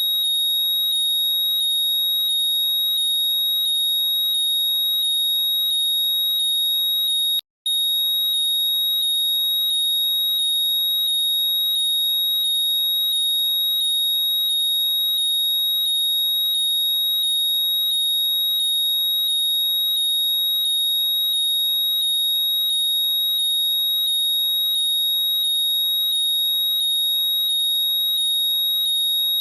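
Apple AirPods Find My locate sound, played loud: a steady high-pitched tone with a quickly repeating pattern of falling chirps on top, looping without change. It cuts out for a moment about seven and a half seconds in.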